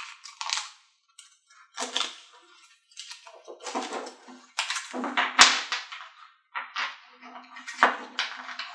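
Stacks of Truffle Shuffle game cards handled in the hands: gathered, shuffled and riffled in a string of short swipes, with a sharp tap about halfway through.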